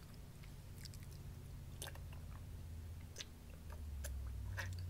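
A person chewing a mouthful of food close to the microphone, with scattered soft, wet mouth clicks, over a low steady hum that grows a little louder near the end.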